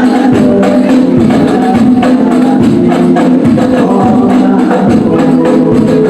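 Hadroh music: hand-struck frame drums beating a dense, driving rhythm under sung vocals.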